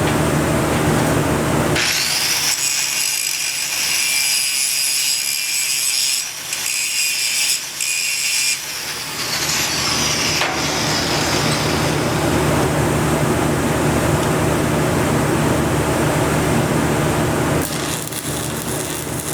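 Stick (shielded metal arc) welding: the electrode's arc crackling and hissing steadily as a weld pass is run on a preheated steel shaft. From about two seconds in it turns brighter and sharper for several seconds, with two brief breaks.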